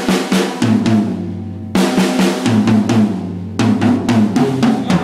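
Acoustic drum kit played in a fast, busy run of stick strikes. It breaks off briefly twice and starts again.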